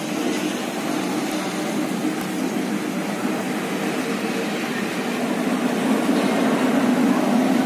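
Diesel locomotive engine running as the locomotive draws near: a steady low drone that grows a little louder toward the end.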